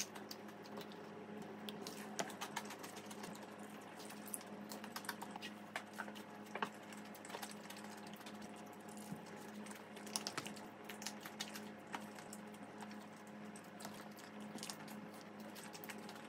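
Close-up crunching and crackling of crispy Bburinkle fried chicken being bitten and chewed: a dense run of small crisp clicks over a faint steady hum.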